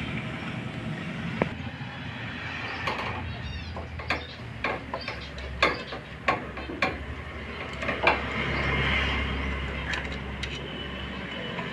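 Socket tool turning a scooter's starter bendix bolt loose. It makes a string of sharp metallic clicks and clinks at irregular intervals.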